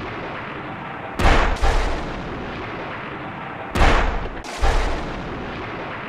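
Loud booming blasts laid over the title card as a dramatic sound effect: a pair about a second in and another pair near the middle. Each hits suddenly and dies away in a long rumble, over a steady rumbling noise.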